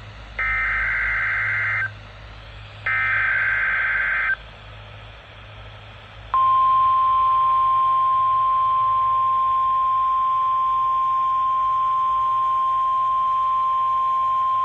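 NOAA Weather Radio Emergency Alert System signal: two bursts of the SAME digital header, a harsh buzzing data screech about one and a half seconds each, about a second apart. About six seconds in, the steady 1050 Hz warning alarm tone starts and holds, announcing that an alert message follows. A low hum from the receiver runs underneath.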